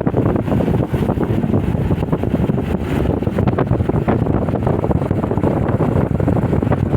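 Wind buffeting the microphone, with a vehicle's running noise underneath: a steady, loud rumble.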